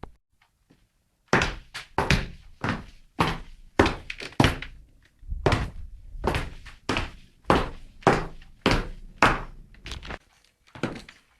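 High-heeled shoes striking a hard floor in walking steps, each a sharp click with a short ring, about two a second. The steps start about a second in and pause briefly near the end.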